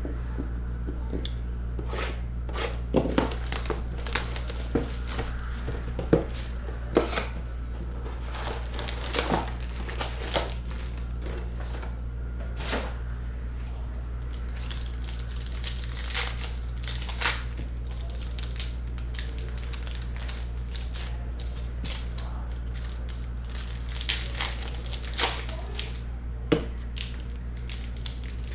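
Foil trading-card packs and a card box being handled and opened: scattered sharp crinkles, crackles and taps over a steady low hum.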